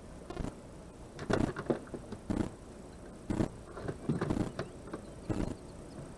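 Irregular knocks, bumps and rustles of fishing gear being handled close to the microphone, as tangled line is sorted out.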